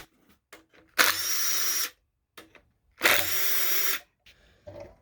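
Handheld power tool run in two short bursts of about a second each, its motor giving a steady high whine, while undoing bolts on an engine being torn down.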